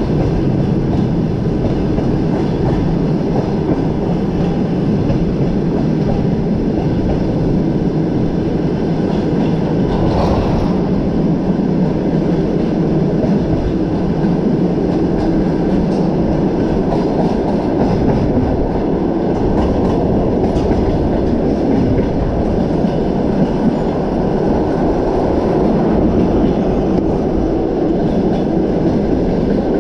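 Passenger train carriage running along the track, heard at its window: a steady rumble of wheels on the rails, with a brief sharper rattle about ten seconds in.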